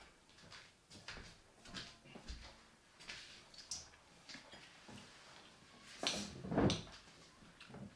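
Scattered light clicks and knocks of eating utensils against dishes and takeout containers at a table, with a louder clatter and scrape about six to seven seconds in as a spoon scoops from a bowl.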